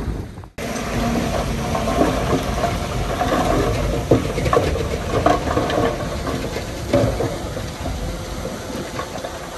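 Heavy diesel earthmoving machinery running, with scattered knocks and clanks. The sound drops out briefly about half a second in, then carries on.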